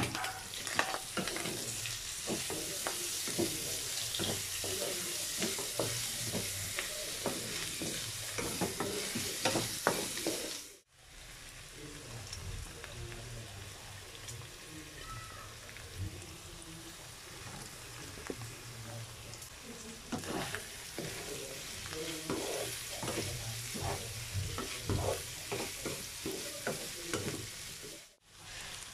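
Diced pork belly with shrimp paste sizzling in a nonstick wok while a wooden spatula stirs it, with frequent scrapes and clicks of the spatula against the pan. After a brief break about eleven seconds in, the sizzling and stirring continue more quietly with green beans in the pan.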